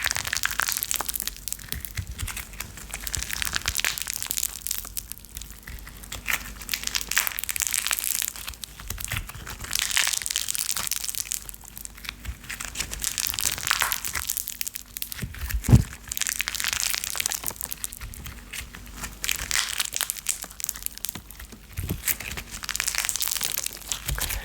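Close-miked crackling and crinkling, the ASMR crackle of a fireplace fire, coming in swells every couple of seconds, with one sharp low thump about 16 seconds in.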